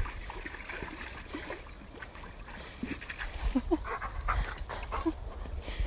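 An excited dog panting, with a few short high whines around the middle and again near the end.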